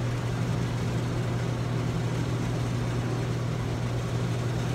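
Steady low mechanical hum of running machinery, with a constant low drone that does not change in pitch or loudness.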